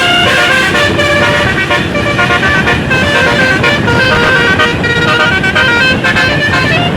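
Indonesian bus 'telolet basuri' horn, a set of roof-mounted multi-tone air horns, playing a tune of held notes that step from pitch to pitch without a break, over a steady rough background rumble.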